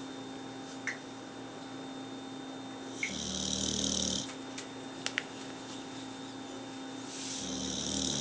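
Sleeping bulldog snoring: two snores, each about a second long and about four seconds apart, one about three seconds in and the next starting near the end.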